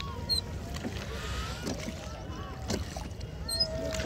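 Wooden rowboat being rowed on a lake: a few sharp knocks from the oars over a steady low rush of water and wind, with faint shouts and chatter from other boats.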